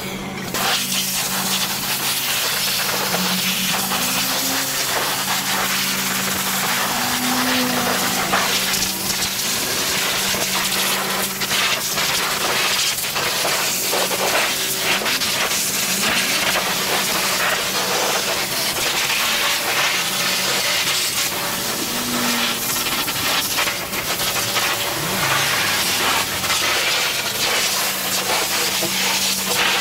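High-pressure car-wash wand spraying a jet of water onto a dirt bike. The spray hisses loudly, coming on abruptly and holding steady, with a low steady hum underneath.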